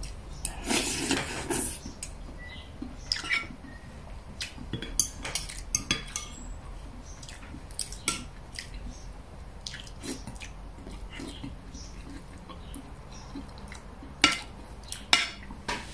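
Metal spoon and fork clinking and scraping lightly, now and then, against a ceramic plate and a glass bowl of soup during eating.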